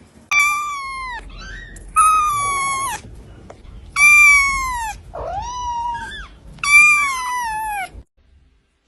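Ginger kitten meowing loudly: four long, high meows that fall in pitch, about two seconds apart, with shorter, softer mews between them.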